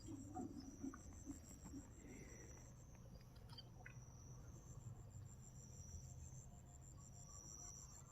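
Faint, steady high-pitched chirring of crickets, with a low hum underneath.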